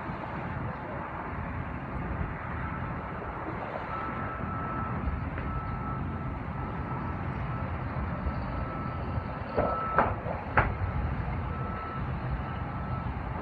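Steady low rumble with a faint thin whine that comes and goes, broken by three sharp knocks close together about ten seconds in.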